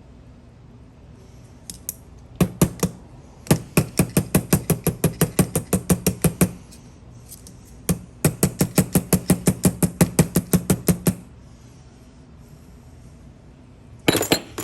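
Small hammer tapping rapidly on the metal of an antique lever lock, two even runs of light taps at about seven a second, each lasting a few seconds. A brief scraping rattle of metal parts near the end.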